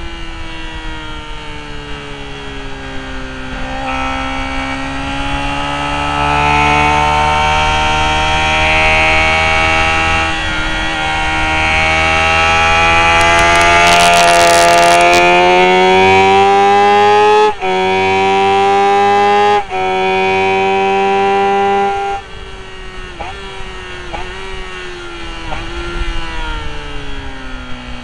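Sport motorcycle engine lapping a track. The revs sink at first, then climb steadily under hard acceleration, broken by two quick upshifts about two-thirds of the way through. Then the throttle closes and the revs fall with a few short blips as it downshifts for a corner.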